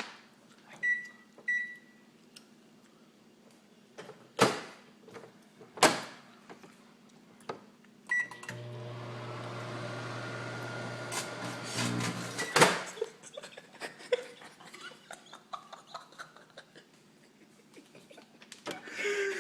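Microwave oven: two keypad beeps and a couple of loud clicks of the door and controls, then a beep and the oven running with a steady low hum for about three and a half seconds, with sharp crackling snaps near the end as the iPhone 5 inside arcs. The hum stops and a loud click follows, like the door opening.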